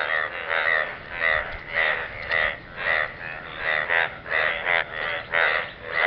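A chorus of frogs croaking in a pool of water: short pulsed croaks, several frogs overlapping, repeating a little over twice a second.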